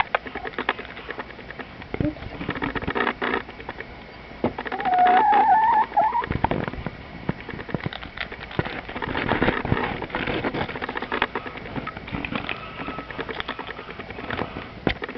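Chicken pecking at crunchy cereal pieces: a run of quick irregular taps and crunches. About five seconds in comes a short wavering, warbling call.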